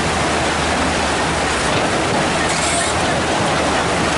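Hydraulic excavators' diesel engines running under load while digging mud: a steady low rumble under a loud, constant rushing noise.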